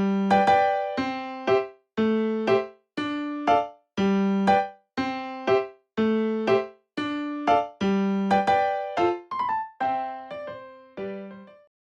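Background music on an electric piano: a light melody of struck notes, about two a second, each dying away, which stops shortly before the end.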